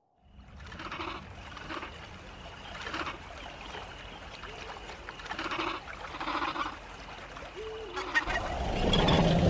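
Sound-designed calls of small feathered raptor-like dinosaurs: a series of short, low-pitched calls about a second apart, with one rising-and-falling call near the end. A low rumble swells in over the last second or so.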